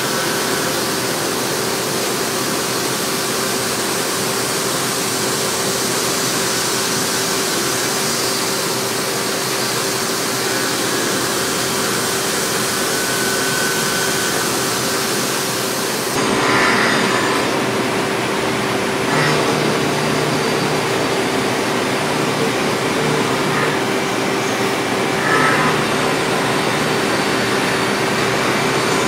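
CNC milling machine cutting bevel gear teeth with an end mill: the spindle and cut make a steady hiss over a constant hum-like tone. About halfway through the highest hiss drops and a few brief scraping bursts stand out.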